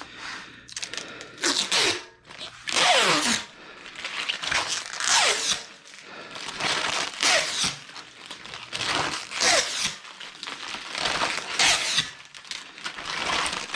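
Aluminum extrusion scraping and sliding against metal in about eight repeated strokes, several with a squeak that falls in pitch.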